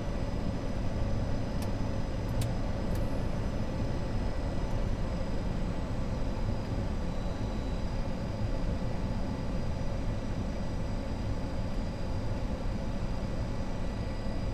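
Steady flight-deck noise of a BAe 146-300 on final approach with gear down and flaps 33: a deep rumble of airflow and its four turbofan engines, with faint steady tones over it. A couple of short clicks come about two seconds in.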